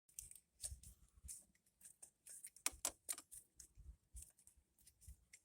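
Faint, scattered clicks and light taps of metal tools and small parts being handled, with a few sharper ticks near the middle.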